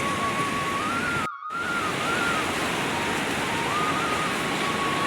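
Steady rushing noise, like flowing water or wind, with a faint thin high tone that wavers up and down in small steps. The sound cuts out completely for a moment about a second and a half in.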